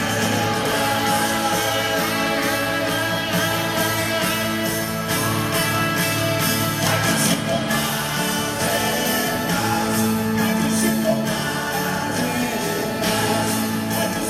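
Rock band playing live: electric guitars, drums and keyboards in full, steady instrumental playing, heard as an audience recording in an arena.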